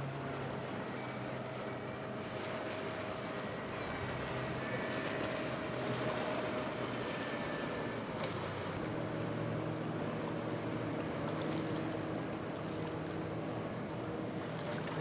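Boat engines running steadily over a constant wash of wind and water; about eight seconds in, the engine note changes to a different pitch as another engine takes over or the throttle changes.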